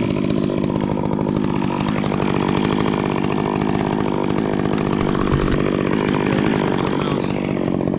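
Two-stroke chainsaw running steadily.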